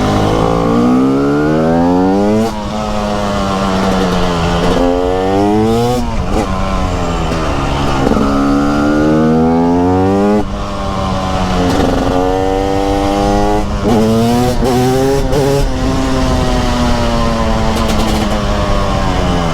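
Two-stroke TM SMR 300 supermoto engine accelerating hard again and again, its pitch climbing steeply and then dropping sharply about eight times as the throttle is opened and shut through a run of tight bends.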